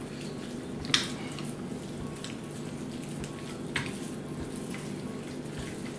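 Raw chicken being pulled apart by hand: wet squishing and tearing as the breast meat is torn from the carcass, with a few sharp wet clicks, over a steady low hum.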